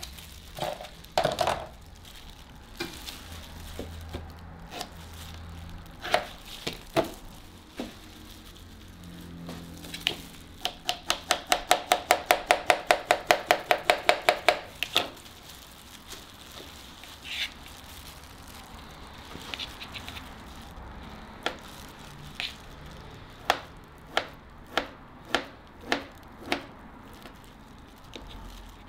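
Kitchen knife chopping fruit, banana then kiwi, on a plastic cutting board. A fast, even run of about five taps a second comes in the middle, and slower single cuts of about two a second come near the end.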